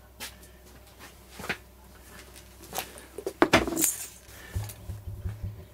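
Small objects being handled and set down on a wooden workbench: several separate knocks and clatters, the loudest cluster about three and a half seconds in as a plastic tub is put down, followed by a few dull handling bumps.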